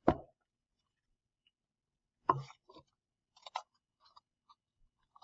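Two sharp knocks, one at the start and a heavier one about two seconds in, followed by light crinkly clicks and taps: a cut plastic water-bottle craft and its paper parts being handled.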